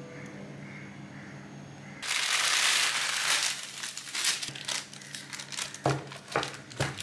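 Baking parchment crinkling and rustling as a sheet of baked cookies is slid off a metal baking tray. It starts suddenly about two seconds in, loudest at first, then thins into scattered crackles with a few sharp ticks.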